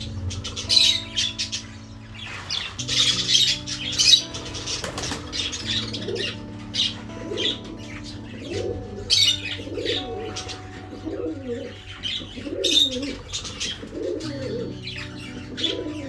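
A flock of budgerigars chattering and chirping in an aviary, a dense run of quick high chirps with some wing flutter as birds fly about. Soft background music plays underneath.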